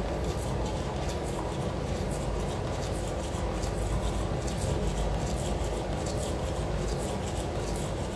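A steady low rumbling hum, with faint small clicks and mouth noises of eating over it.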